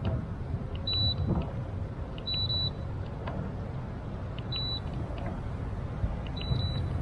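Four short, high electronic beeps about two seconds apart, over a low rumble of wind on the microphone.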